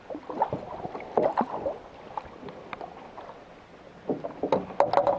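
Water splashing and sloshing in irregular bursts, one cluster in the first two seconds and another from about four seconds in.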